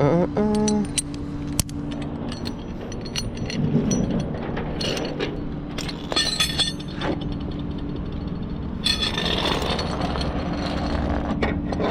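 Metal clinking and clicking of tie-down hooks and chains being fastened on a flatbed tow truck, over the steady hum of the truck's idling engine.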